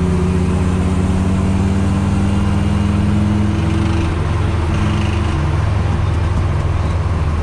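Honda Integra engine running as the car is driven gently, heard from inside the cabin, its pitch creeping up slightly and then easing back a little over halfway through. The engine is knocking, which the driver takes for a rod knock.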